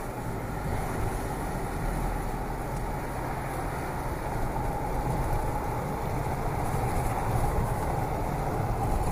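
Steady driving noise of a moving car heard from inside its cabin.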